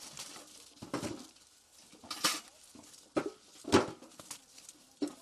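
Freshly picked apples dropped by hand one at a time into a galvanized metal bucket, making irregular thuds and clunks on the apples and the metal sides, with the rustle of leaves and branches as the fruit is pulled.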